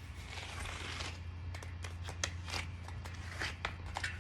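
A clincher bicycle tyre and inner tube being worked off the rim by hand: a rubbing scrape, then a string of short sharp clicks and snaps as the rubber bead is pulled over the rim.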